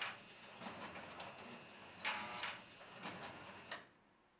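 Vintage 1960s electromechanical cigarette vending machine, newly powered up, giving two short mechanical buzzing whirrs about two seconds apart, with faint ticking between. The sound cuts off suddenly near the end.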